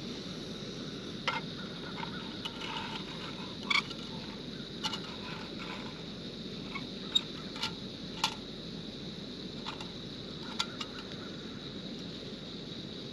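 Small gas canister camp stove burning with a steady hiss. A metal canteen cup is set on it and handled, giving a dozen or so scattered clinks and taps.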